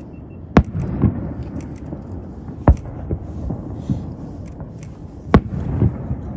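Aerial firework shells bursting: three loud bangs about two and a half seconds apart, with smaller pops and rumbling between them.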